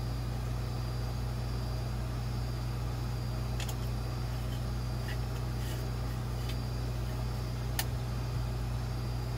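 A steady low electric hum, level throughout, with a few faint clicks as a plastic diving regulator is handled and screwed back together.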